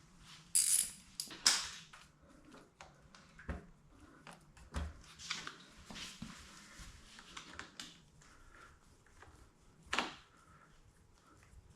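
Hand work fitting a motorcycle handlebar switch cluster: scattered clicks, taps and short scraping rustles of plastic parts and tools, the loudest a few sharp scrapes about half a second to a second and a half in and a click about ten seconds in.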